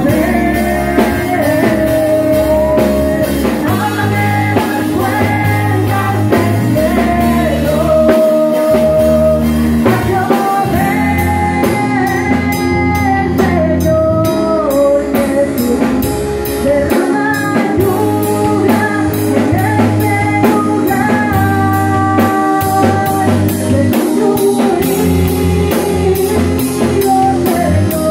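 Live church worship band playing: a woman sings the melody through the microphone and PA over a drum kit and electric guitar, with a steady beat and heavy bass.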